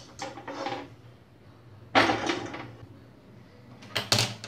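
Steel cookware and utensils being handled on a gas stove: a few sharp metallic knocks, with a louder clatter about two seconds in that trails off, and two quick knocks near the end.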